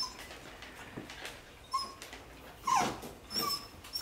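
Bichon Frise dog whining in three short high whimpers, the middle one the loudest and sliding down in pitch.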